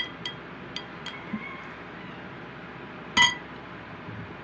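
Light clinks of tableware, a few small ticks and then one louder clink about three seconds in.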